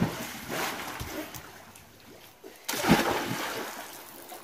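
Swimming-pool water splashing and churning just after someone jumps in, then a second, louder splash about three seconds in that dies away.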